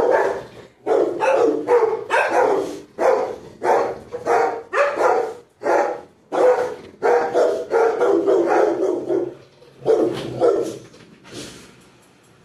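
Several house dogs barking over and over, about two barks a second, in an excited reaction to a conch shell being blown; the barking tails off near the end.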